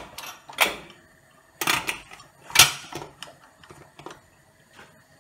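Stainless-steel pressure cooker lid being set on and locked onto the pot: several sharp metallic clacks and clicks, the loudest about two and a half seconds in, then a few lighter clicks near the end.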